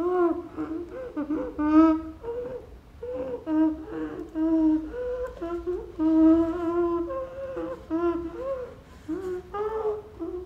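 A woman humming a slow wordless tune, holding notes with short breaks between phrases.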